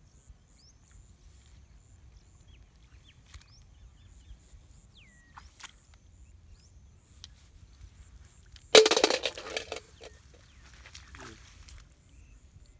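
Outdoor field ambience: a steady high-pitched whine, scattered short bird chirps, and a sudden loud noisy burst about nine seconds in that dies away over about a second.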